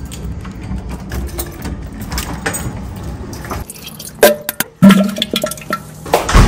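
Water running as a toilet refills after a flush, followed by a few sharp knocks and clinks near the end.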